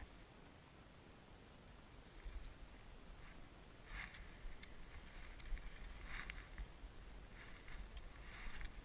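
Quiet outdoor ambience: a low wind rumble on the microphone and a few short, soft rustles.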